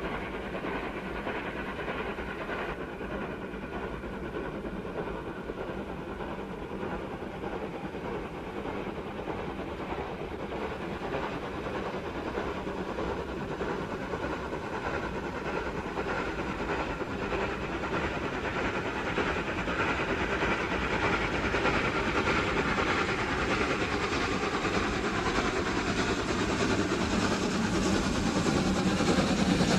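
Steam locomotive hauling a heavy freight train, growing steadily louder as it approaches.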